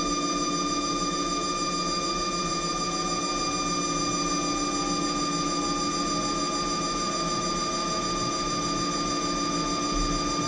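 HAAS TL-1 CNC lathe running with its spindle turning a stainless AR-15 barrel at a steady speed: a steady machine whine of several fixed tones over a motor hum, with no change in pitch or level.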